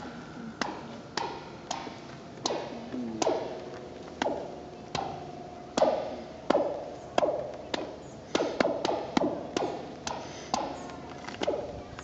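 A long rusted steel I-beam tapped by hand, about twenty times at an uneven pace with a quick run of taps about two-thirds through. Each tap comes back as a short spacey zap, a ringing glide in pitch that trails after the hit.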